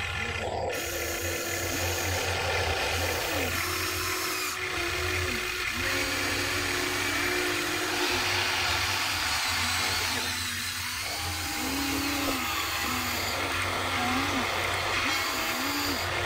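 Small electric motors of Huina radio-controlled toy excavators whining as they dig and load soil, repeatedly starting, stopping and sliding up and down in pitch as the boom, arm and bucket move, over a steady low hum.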